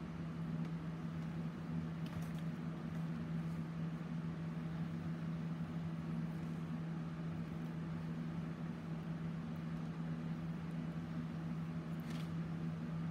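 Steady low mechanical hum over a faint hiss, with two faint ticks, about two seconds in and near the end.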